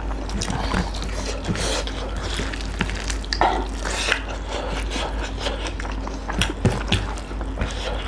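Close-up eating by hand: wet squishing of rice and curry mashed in the fingers, with chewing and lip smacking in many short clicks and squelches, a couple of louder smacks about halfway through. A steady low hum sits underneath.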